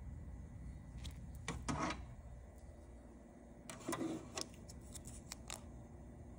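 Handling noise of small objects: a few light clicks and two short scraping rustles, about one and a half seconds in and again about four seconds in, over a low steady hum.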